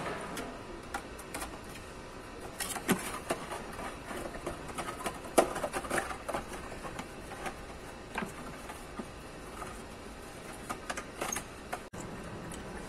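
Metal tools and engine parts clicking and tapping at irregular intervals as a mechanic works by hand on an opened-up car engine, over a steady background hiss.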